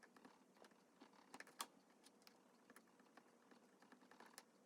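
Near silence broken by a few faint, light clicks and ticks, scattered irregularly, with slightly louder ones about a second and a half in and near the end.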